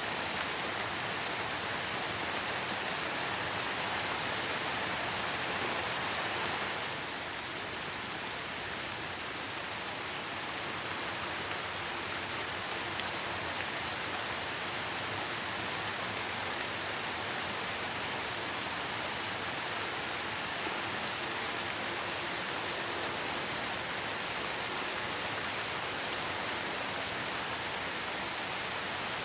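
Steady rain falling, an even hiss of many drops, easing slightly about seven seconds in.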